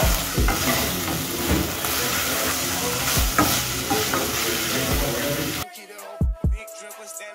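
Food sizzling as it fries in a non-stick pot, stirred and scraped with a wooden spoon, with occasional knocks of the spoon against the pot. The frying cuts off suddenly near the end, leaving quieter hip hop music.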